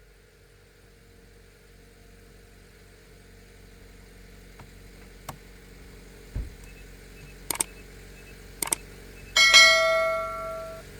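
A few sharp clicks and knocks over a steady low hum, then a loud ringing metallic clang near the end that dies away over about a second and a half.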